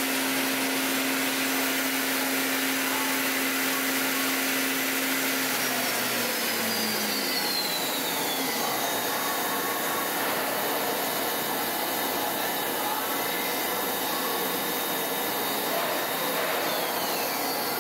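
2005 Mighty Viper B3000PXT CNC bridge mill running under power: a steady whirring hiss. A hum and a high whine both glide down in pitch between about six and eight seconds in, and a shorter falling whine comes near the end.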